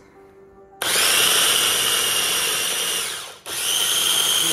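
Electric mini food chopper blending yogurt with chopped herbs and garlic, run in two pulses: its motor starts with a high whine about a second in, winds down and stops after a couple of seconds, then starts again at once.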